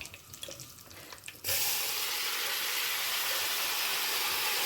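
A tempering crackles faintly in hot oil. About a second and a half in, a loud, steady sizzle starts suddenly as water-soaked brinjal (eggplant) pieces go into the oil.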